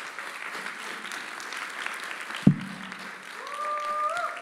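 Audience applauding, with a single loud thump about halfway through. Near the end a voice calls out one long held note that rises at its end.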